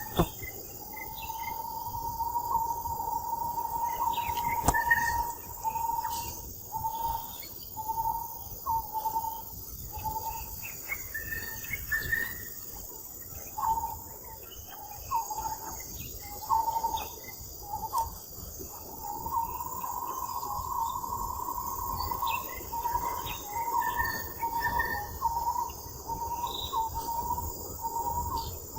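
Steady high-pitched drone of insects, with a clear call near one pitch repeating on and off throughout, in short broken notes and a few longer held stretches.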